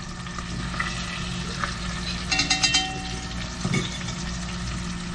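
Curry sauce sizzling in a pan on the hob as it is stirred, with a short ringing sound a little over two seconds in.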